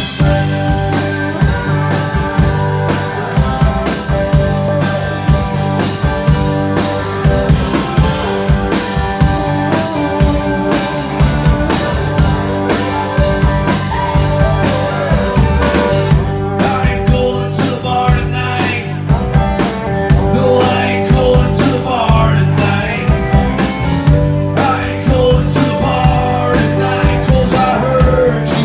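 Live country-rock band playing, with drum kit, acoustic guitar and Nord keyboard. The cymbals drop back about halfway through, leaving the drums, guitar and keyboard lines.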